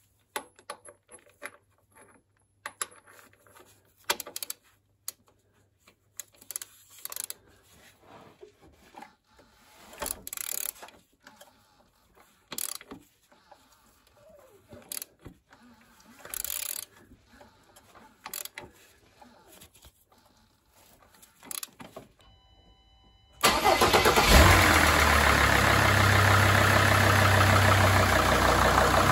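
A socket wrench turning a diesel engine's crankshaft pulley by hand: scattered clicks and scrapes, a check that the engine isn't seized after standing for about 18 months. About 23 seconds in, the Mercedes ML 270 CDI's 2.7-litre five-cylinder diesel starts and runs steadily and loudly, its first start after that long lay-up.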